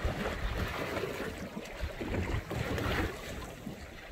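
Wind buffeting the microphone over sea water washing against a small boat's hull, coming in uneven surges.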